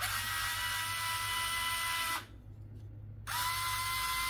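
Fanttik cordless electric screwdriver running in reverse at its highest setting, a steady high whine. It runs for about two seconds, stops for about a second, then runs again.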